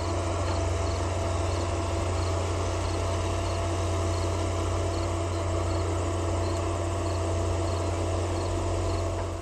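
Insects, likely crickets, chirping in a regular high rhythm over a loud, steady low rumble with a faint steady hum.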